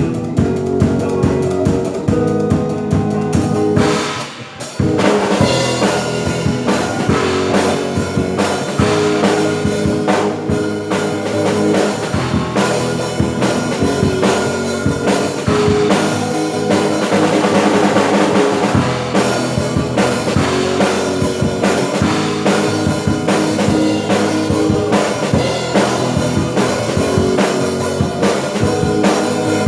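Worship-song band music led by a drum kit, with kick, snare and cymbals under sustained guitar chords. The band breaks off briefly about four seconds in, then comes back in full.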